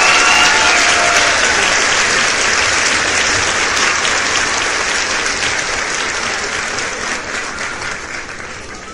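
Crowd applauding, fading out gradually toward the end.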